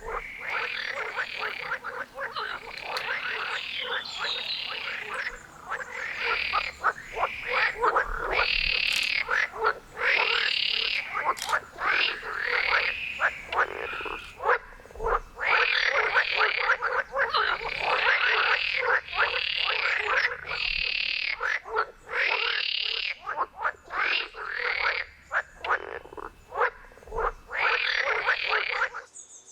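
A chorus of frogs croaking, many calls overlapping in dense runs with short gaps between them, cutting off abruptly at the very end.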